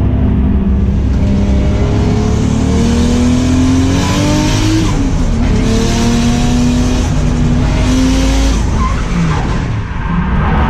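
BMW E36 drift car's engine revving hard inside the stripped cabin, its pitch climbing and falling with the throttle and dropping sharply about halfway through. The tyres screech through the slide. The revs sag briefly near the end, then pick up again.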